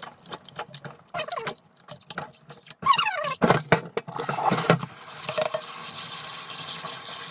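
Shucked oysters being rinsed by hand in a stainless-steel colander in a sink: irregular splashes and knocks of metal on metal. From about four and a half seconds in, the kitchen tap runs steadily onto them.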